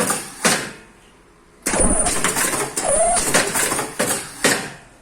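Face-mask ear-loop attaching machine running through its work cycle: about three seconds of clattering mechanical noise with a high hiss and short squeals, bounded by sharp knocks, then a pause of about a second before the next cycle.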